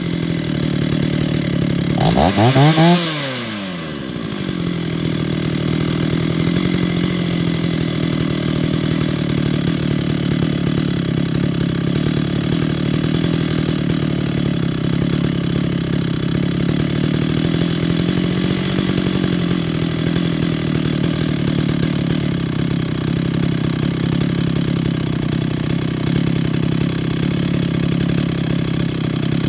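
Small two-stroke chainsaw idling, with one quick blip of the throttle about two to three seconds in, the pitch rising sharply and falling back; afterwards the idle holds steady with a slight waver in speed.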